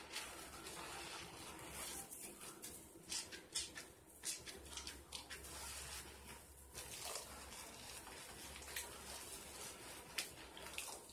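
Faint wet squishing and crackling of soap lather as hands squeeze and knead pink mesh bath puffs. It comes as an irregular run of short squishes and pops.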